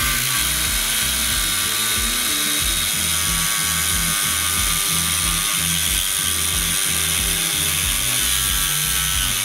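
Cordless 125 mm angle grinder (DEKO DKAG20-125) cutting through a padlock's steel shackle with an abrasive disc, a steady high-pitched grinding that holds without a break.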